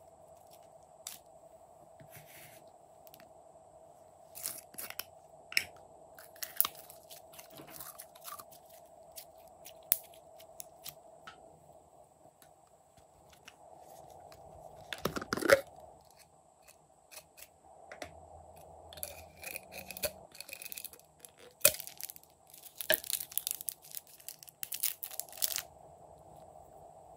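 Glossy slime being squeezed and pulled by hand, giving sticky crackles, pops and clicks, with sequins and confetti sprinkled onto it. The crackling comes in scattered bursts, loudest about halfway through and dense again near the end.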